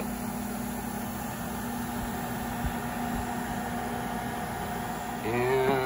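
Cooling fans of the CNC control box's switching power supplies running: a steady whir with a low electrical hum.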